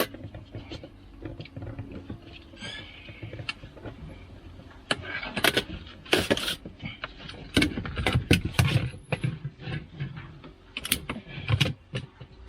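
Child car seat being handled: buckles and latches clicking and knocking, with rustling and thumps as the seat is shifted around. The clicks come in clusters and are busiest in the second half.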